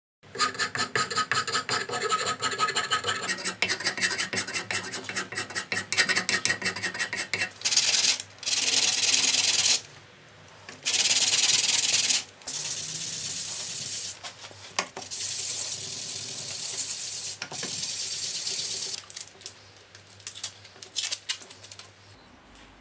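A hand file rasping across a wooden elm knife handle in quick, rapid strokes. After about eight seconds it gives way to longer, separate strokes of sandpaper sanding the handle, each lasting a second or two.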